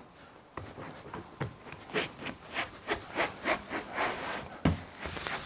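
Hands rubbing and pressing a flexible solar panel down onto its adhesive bed: a quick, irregular run of short rubbing strokes, about three a second, with one heavier thump a little past two-thirds through.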